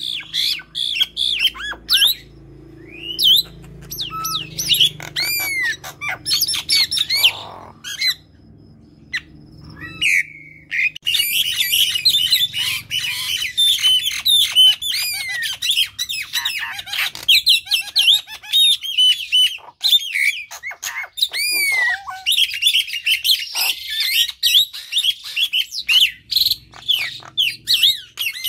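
A young jalak suren (Asian pied starling) and a jalak nias (Nias hill myna) calling back and forth with loud, rapid chirps, whistles and squawks. The calls are scattered at first and run almost without a break from about ten seconds in.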